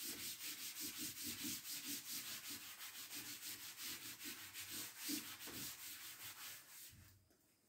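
Chalkboard eraser rubbing back and forth across a chalkboard, wiping off chalk in quick scrubbing strokes, about four a second, that stop about seven seconds in.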